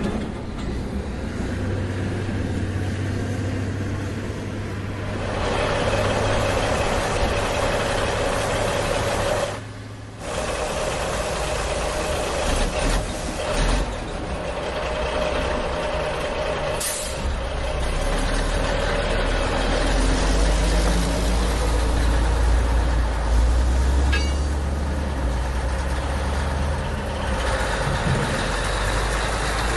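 A heavy truck-like engine runs steadily throughout, with a short break about ten seconds in.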